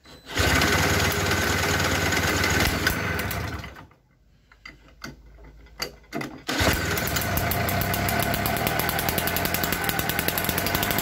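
Stihl BR 400 backpack blower's two-stroke engine, spun over with a cordless drill on the starter, catches and runs loud for about three seconds, then cuts out. After a few clicks it fires again about six and a half seconds in and keeps running steadily with its throttle held open, with a rapid, even pulsing to its beat.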